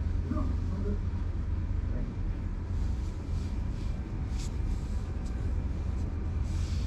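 A steady low rumble throughout. From about three seconds in come soft brushing sounds of a hand stroking a cat's fur close to the microphone.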